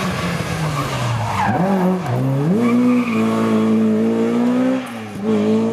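Rally car engine on a special stage: its pitch falls at first, then climbs in steps as the car accelerates up through the gears, with a short drop at each gear change, and is held high for a couple of seconds before another change near the end.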